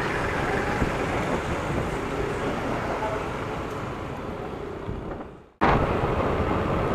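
Steady riding noise from a Yamaha Aerox 155 scooter moving through city traffic: a rush of engine, wind and road noise. It fades and cuts off abruptly about five and a half seconds in, then starts again louder.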